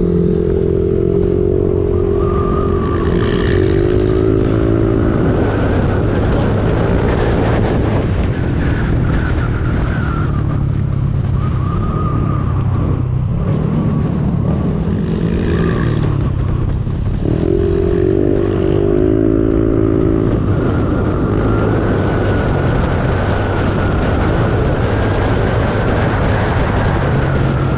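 Motorcycle engine running on the move, its pitch rising and falling with throttle and gear changes, over a steady rumble of wind on the microphone.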